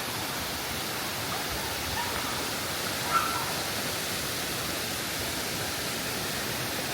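Steady rushing of a waterfall pouring into a swimming pool, with a brief faint high sound about three seconds in.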